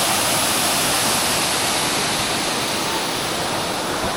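A waterfall, its water rushing steadily.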